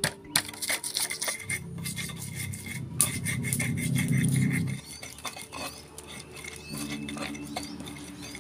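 Stone pestle grinding and knocking in a stone mortar, crushing garlic, shallots, bird's eye chillies, salt and sugar into sambal: irregular scraping and sharp clicks of stone on stone.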